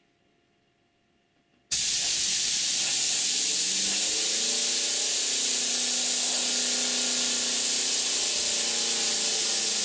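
A compressed-air jet hissing loudly and steadily, driving a crude finned Tesla turbine made of hard-disk platters to spin fast with no load. It starts abruptly about two seconds in, with a faint low hum beneath the hiss.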